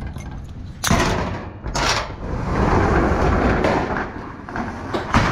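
Several sharp knocks and thuds, about a second in, near two seconds and again near the end, with a rough scraping or rustling noise between them.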